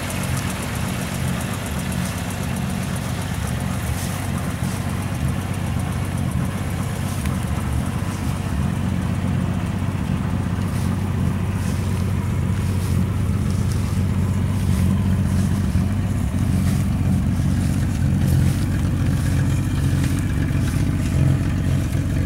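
1965 Ford Falcon's inline six-cylinder engine idling steadily.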